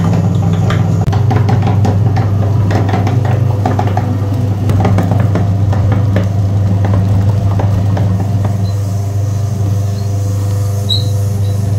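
Motor-driven meat grinder running with a steady hum, crushing and extruding a crumbly pale material through its cutting plate, with a crackling of small snaps over the first half.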